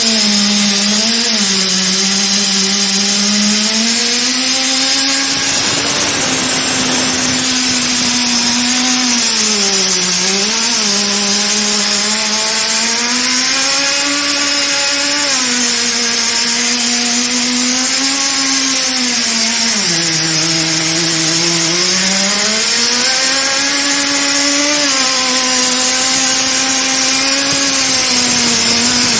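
Portable in-situ crankpin grinding machine running on the crankshaft of a MAN B&W 5L16/24 engine: a steady motor whine over a hiss. The pitch sags several times, about a second in, around ten seconds and around twenty seconds, and each time climbs back.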